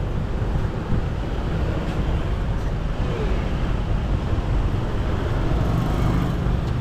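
Steady road traffic noise, a continuous low rumble of passing cars and motorbikes.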